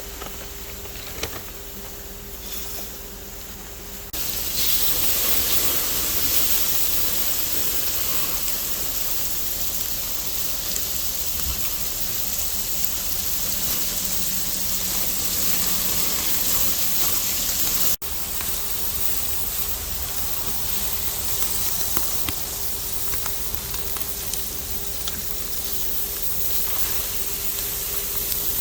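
Ribeye steak sizzling on a grill: a steady hiss that turns much louder about four seconds in, with a brief break around eighteen seconds.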